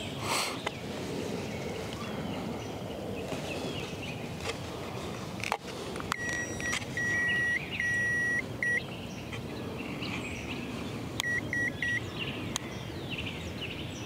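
Electronic beeps from a Ghost Controls wireless gate keypad as it comes to life during programming: a run of short and longer beeps about halfway through, then three quick beeps a few seconds later, with a few sharp clicks between.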